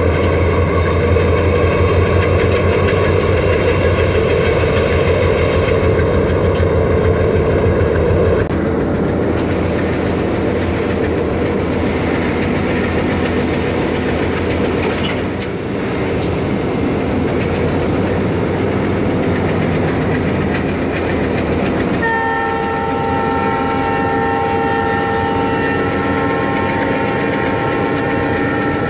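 Indian Railways diesel locomotive's engine running steadily, heard from inside the cab. The deep hum eases a little about eight seconds in. From about two-thirds of the way through, a steady chord of several high tones sounds over it.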